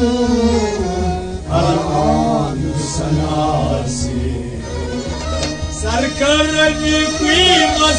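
Kashmiri Sufi song: a man's singing voice with harmonium accompaniment, over a steady low beat about twice a second.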